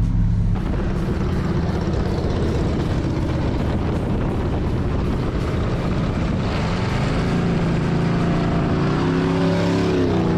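V8 car engines and road and wind noise from cars on the move. About six and a half seconds in, an engine note climbs in pitch as a car accelerates, then bends and falls near the end as it goes by.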